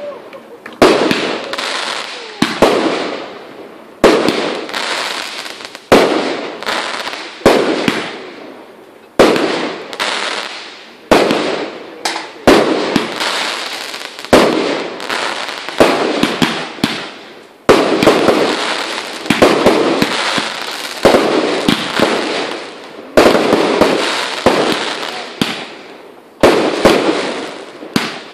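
Aerial fireworks going off in a steady run of loud bangs, about one a second, each with a fading tail after it.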